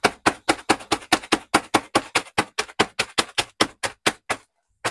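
Rapid, even knocks, about five a second, from hot Cheetos being pounded in a Ziploc bag to crush them into dust. The knocks pause briefly near the end.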